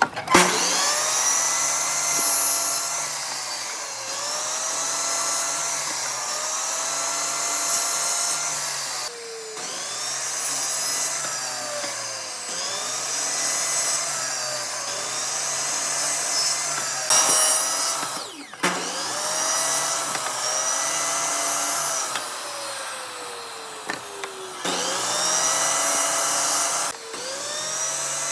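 High-speed electric power tool working wood. Its motor pitch sags and climbs back every two seconds or so, and it stops briefly a few times before starting again.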